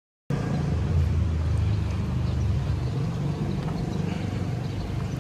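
Steady low rumble of outdoor city ambience, cutting in suddenly a moment in after silence.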